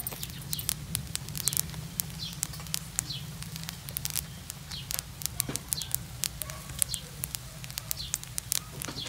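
Irregular sharp crackles and clicks, with short high chirps from birds recurring about once a second over a steady low hum.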